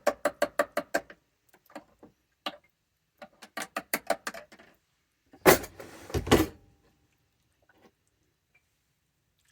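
Spoon stirring the chili in a crock pot, clinking rapidly against the insert about six times a second in two spells. Two loud knocks follow about five and a half and six seconds in, then near quiet.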